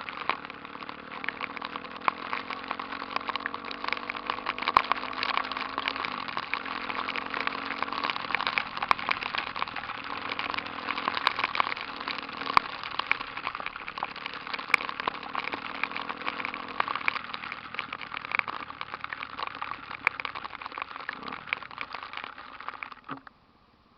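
Honda Tornado motorcycle's single-cylinder four-stroke engine, bored out to 293cc, running steadily under a dense rough hiss. The sound cuts off suddenly near the end.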